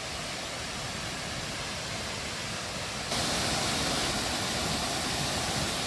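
Rain-swollen waterfall roaring steadily. About three seconds in it suddenly gets louder and brighter.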